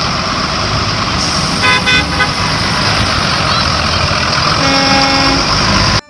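School buses driving past on a wet road, engines running over a steady tyre hiss. There are a few short horn toots about two seconds in and a longer horn toot near the end.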